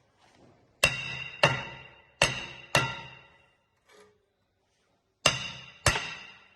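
Hammer blows on a rusted-on cast-iron brake disc to knock it free of the hub, six strikes in three pairs, each leaving the disc ringing like a bell as it fades.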